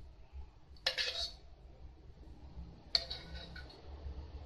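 Metal spoon scraping and clinking against a clay mortar while working in a lump of tamarind paste, in two short bursts about two seconds apart.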